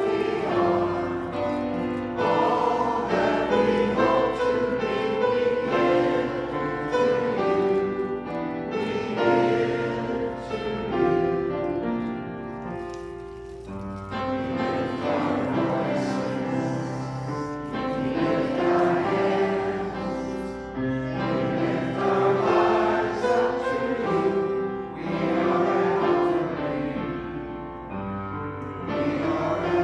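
Congregation singing a hymn together with keyboard accompaniment, in long held notes.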